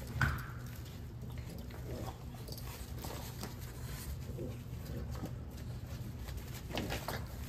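French bulldog puppies playing and wrestling, giving small grunts and whines, with a short sharp yelp just after the start and a longer cry near the end, over a low steady hum.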